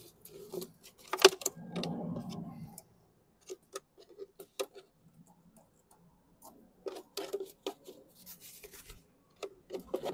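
Small metal clicks and taps of needle-nose pliers working at a mower carburetor's fuel line, with the thin plastic bottle held beneath it crinkling. A single sharp click about a second in is the loudest sound, followed by a brief rustle.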